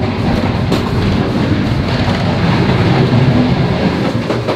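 Passenger train running along the rails, a loud steady rumble and rattle with a few sharp clacks, heard from the corridor and connecting door between carriages.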